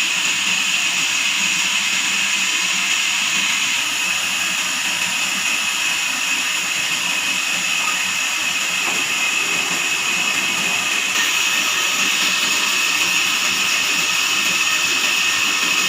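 Band sawmill running, a steady high-pitched whine and hiss.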